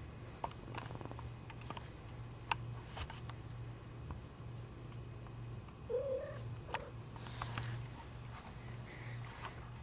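Domestic cat purring, a low steady purr that pulses in and out, with scattered light clicks and a brief chirp-like call about six seconds in.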